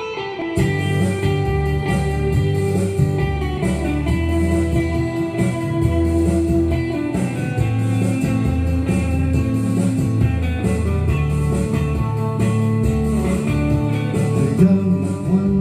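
Instrumental music led by guitar, with sustained notes over a steady bass line and no voice.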